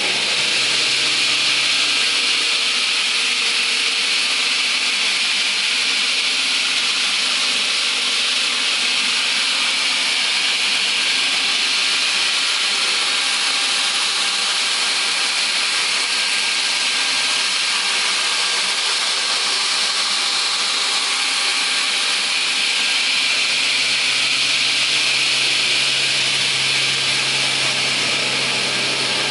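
Raimann KR 310E multi-rip saw running with its blades spinning, a steady loud machine noise with a strong high hiss.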